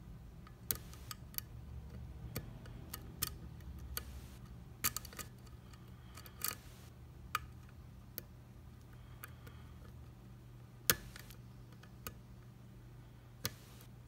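Dimple pick and tension wrench working the pins of a Thirard Trafic 6-pin dimple lock: small metallic clicks and ticks at irregular intervals, one of them louder about three quarters of the way through, over a faint steady low hum.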